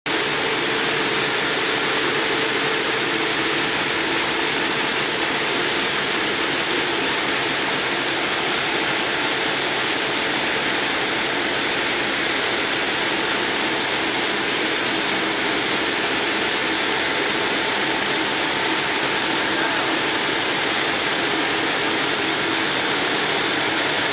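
Multi-blade granite block cutter sawing through a granite block under a water spray: a steady, even hiss and grind of blades and water with a faint hum underneath.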